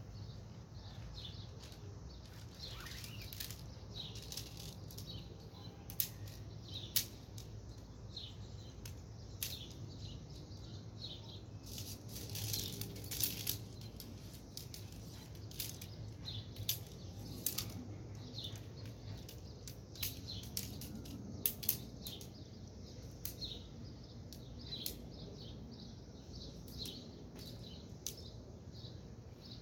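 Tent pole sections clicking and knocking together as the poles are unfolded and fitted, in irregular sharp clicks, with birds chirping now and then.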